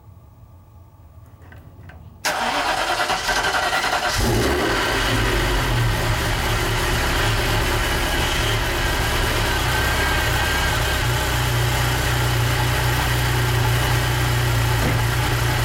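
A 1985 Ferrari Mondial Quattrovalvole V8 is cold-started just after an oil change. After about two seconds of quiet the engine suddenly fires and catches. A couple of seconds later it settles into a steady idle.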